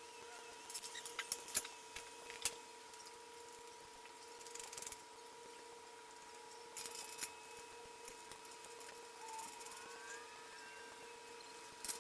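Light metallic clinks and clatter in short bursts, typical of bolts and hand tools being handled, over a faint steady hum.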